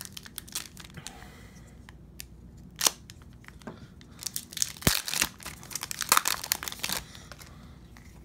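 Foil wrapper of an Upper Deck MVP hockey card pack being torn open and crinkled by hand: scattered small crackles and clicks, then a dense burst of crinkling about halfway through.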